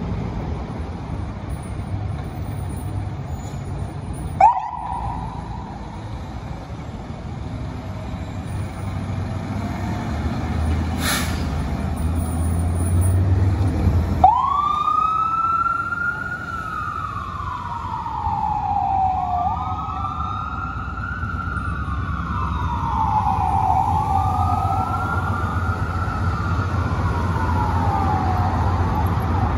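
Fire engine siren: a brief rising whoop about four seconds in, then from about halfway a wail that sweeps up quickly and falls slowly, repeating about every four seconds. Low engine and traffic rumble runs underneath.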